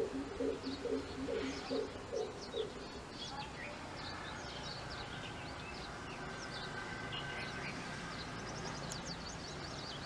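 Greater coucal calling a series of low, evenly spaced 'coop' notes, about two and a half a second, which stops about three seconds in. Small birds chirp with short high notes throughout.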